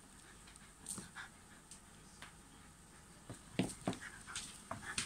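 A Shiba Inu and a tabby cat play-fighting: scattered scuffles and paw swats with short sounds from the dog, the two loudest close together about two-thirds of the way in.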